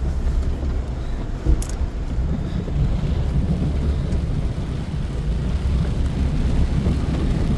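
Heavy 3500 pickup truck's engine working hard as the truck drives through deep mud, a steady low rumble with one brief tick about a second and a half in. The truck is struggling not to get stuck.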